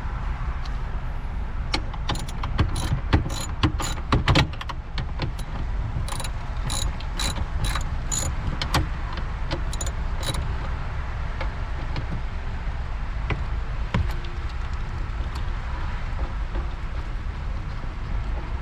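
Irregular metallic clicks and clinks of a ratchet and T50 Torx bit working a seat belt anchor screw loose, some clinks ringing briefly. They stop about ten seconds in, leaving a steady low background rumble.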